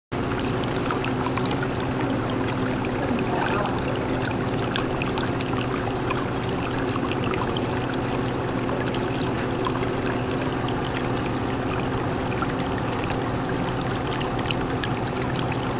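Aquarium water circulating with a steady trickling, splashing flow, over a low steady hum from the tank's pump, with many scattered tiny crackles.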